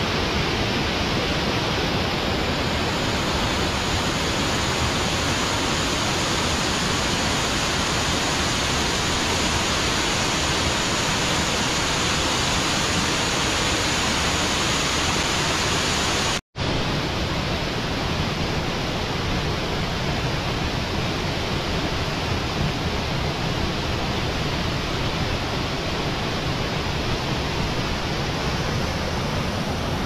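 Mountain stream rushing in small cascades over boulders, a steady loud roar of falling water. About halfway through the sound drops out for a split second and resumes slightly less hissy.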